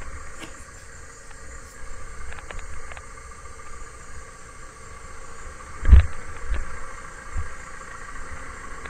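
A 95-horsepower four-wheel-drive tractor and its belt-driven forage harvester running steadily while chopping maize for silage, a steady mechanical hum with a few light clicks. Several low thumps come in the second half, the loudest about six seconds in.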